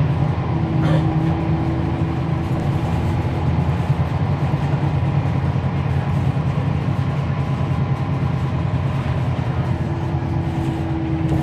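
Cummins ISL9 inline-six diesel engine of a NABI 40-foot transit bus running, heard from on board as a steady low drone. A faint steady whine comes in about half a second in, fades out, and returns near the end.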